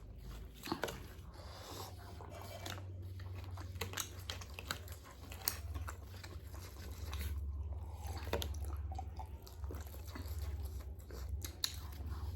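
Close-miked chewing and crunching of KFC fried chicken, irregular bites and crunches of the crispy coating, over a faint steady low hum.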